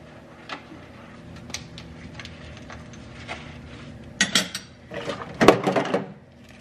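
Dishes clinking in a sink as they are hand-scrubbed with a soapy sponge: a few scattered light clinks, then a busier run of clatter over the last couple of seconds.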